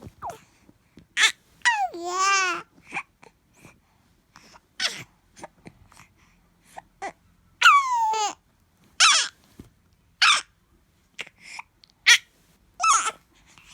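Baby making high-pitched squeals and babbling noises, with short breathy puffs between them. A long wavering squeal falling in pitch comes about two seconds in, and another falling squeal comes about eight seconds in.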